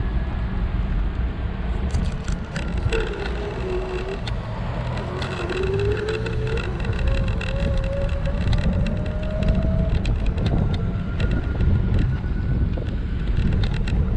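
A steady low rumble of riding a scooter over asphalt, with tyre noise and wind on the microphone and many small clicks and rattles. From a few seconds in until about ten seconds, a faint tone wavers and slowly rises.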